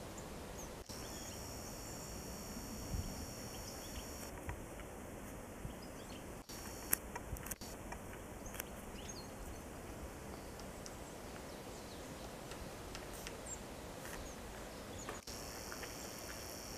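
Faint, steady outdoor background noise with a few small knocks and clicks scattered through, the most noticeable about three and seven seconds in.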